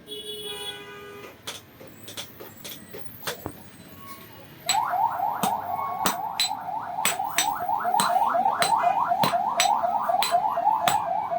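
Sharp metallic knocks at short intervals, then about five seconds in a loud rhythmic rising squeal starts, repeating about three or four times a second: metalworking on the blade in a blacksmith's shop.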